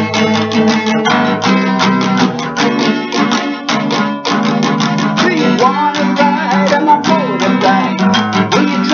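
Guitar-led rock music from a cover song: fast picked guitar notes over a steady rhythm, with a lead line that slides up and down in pitch from about halfway through.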